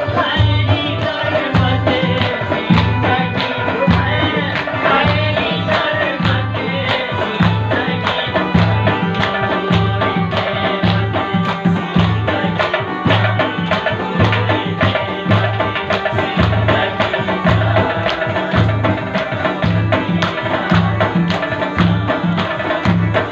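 Live Chitrali folk music: a plucked long-necked lute plays over a steady drum beat, with hand clapping keeping time.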